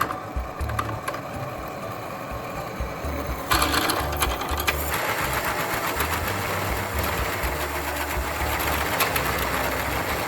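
An electric power tool running against a steel plate, with a fast, busy mechanical rattle and a louder, brighter stretch near the middle.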